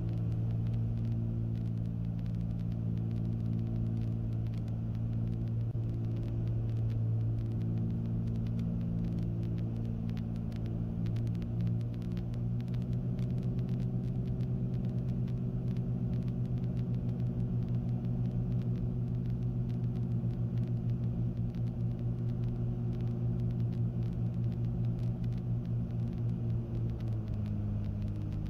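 Cessna 310Q's two six-cylinder piston engines droning steadily on final approach, heard inside the cabin. From about halfway the drone takes on a regular throbbing beat, and the engine note drops near the end as the aircraft crosses the runway threshold.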